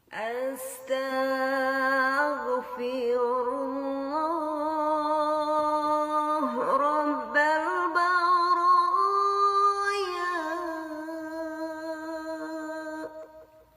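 A single voice chanting an Arabic istighfar dhikr in one long, drawn-out melodic phrase. The pitch wavers throughout, climbs a little about two-thirds of the way through, and trails off near the end.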